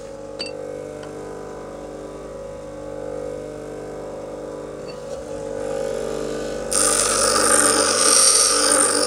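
Bench grinder motor running with a steady hum while the wheel spins free. About two-thirds of the way in, the steel file is pressed back against the wheel and loud grinding starts, as the file's teeth and edges are ground off.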